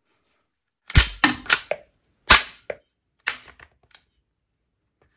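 Sharp metallic clacks and clicks from a T4E HK416 .43-calibre CO2 blowback marker's bolt and bolt catch being worked by hand: four quick clacks about a second in, a single louder clack a little later, then a few lighter clicks.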